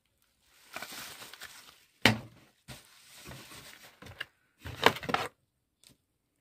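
Bubble wrap and a cardboard box being handled, crinkling and rustling, with a sharp knock about two seconds in and a short cluster of clattering knocks about five seconds in.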